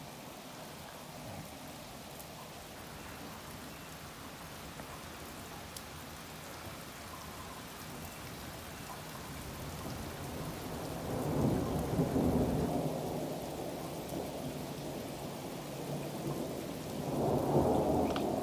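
Steady rain falling during a thunderstorm, with thunder rolling in: a long rumble builds from about halfway through, and another swells near the end.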